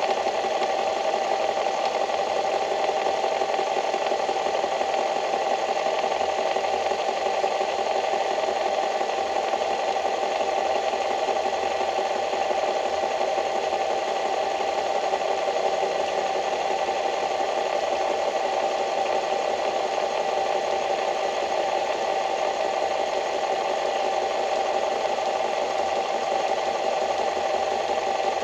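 A small machine running steadily with a rattle, its sound unchanging throughout.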